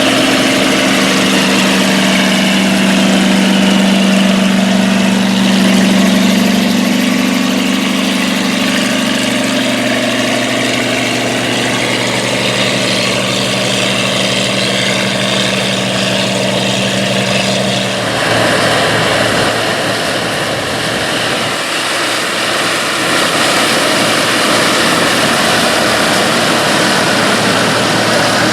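Classic combine harvester engines running steadily while harvesting corn, with the whir and clatter of the harvesting machinery. About two-thirds of the way through, the sound changes abruptly: the steady engine note drops away and a noisier, rougher machine clatter takes over.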